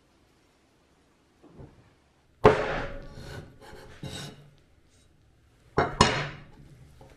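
A hand-forged O-1 tool steel meat cleaver chopping down through a grilled wrap onto a wooden cutting board. One sharp chop comes about two and a half seconds in, with a rough scraping tail of about a second. Two quick strikes follow close together near the end.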